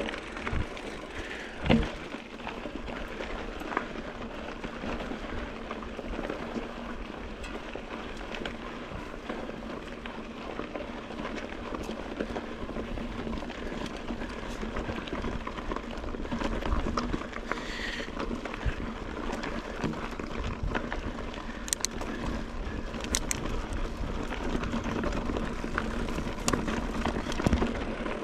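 Rockrider XC900S mountain bike ridden over rough quarry ground: a continuous crunch of tyres with frequent small rattles and knocks, and one sharper knock about two seconds in.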